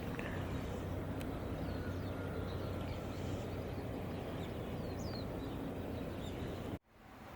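Outdoor ambience: a steady low background rumble with a few faint, short bird chirps. The sound cuts off abruptly near the end.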